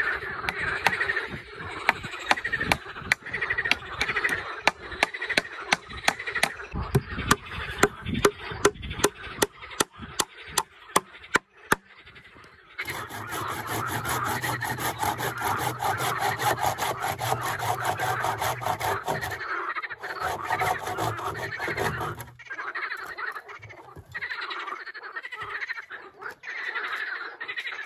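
Frogs croaking in a continuous chorus. Over it, for roughly the first twelve seconds, come sharp knocks about two a second, and a louder, denser stretch of sound follows in the middle.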